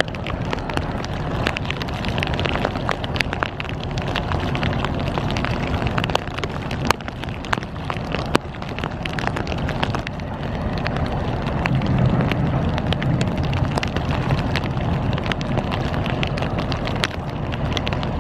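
Wind buffeting the microphone in a low, uneven rumble, with rain drops ticking sharply and irregularly on something close by.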